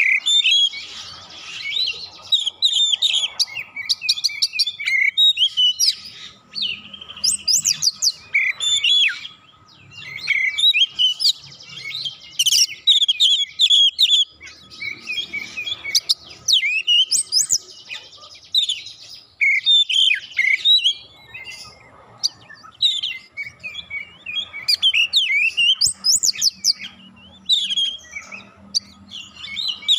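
Oriental magpie-robin singing a loud, varied song of rapid sweeping whistles and chirps, in long dense phrases with short pauses between them.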